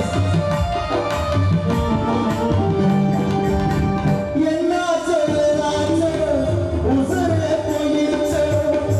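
Music with a drum beat under a wavering lead melody; the melody moves into a new phrase about four seconds in.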